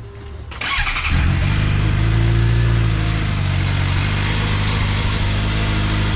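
Suzuki GSX-R 750 inline-four sport bike engine breathing through an Akrapovic slip-on muffler: the starter cranks briefly, the engine catches about a second in, then idles steadily.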